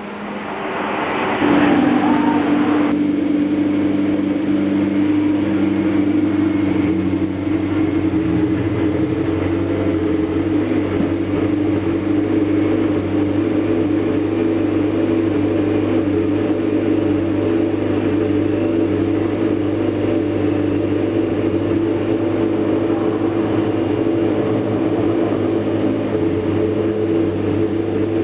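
McLaren MP4-12C GT3's twin-turbo V8 grows louder about a second in, with a short burst of noise, then idles steadily.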